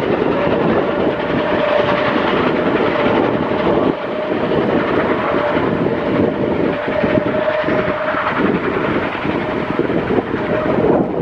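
Passenger cars of a steam excursion train rolling past at speed: a steady noise of wheels on rail, with a thin steady tone running above it for most of the pass.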